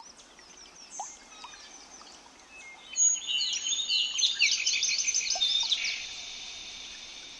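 Wild birds singing: scattered faint chirps, then about three seconds in a louder, dense run of rapid, repeated chirping notes lasting a few seconds, over a thin steady high-pitched tone.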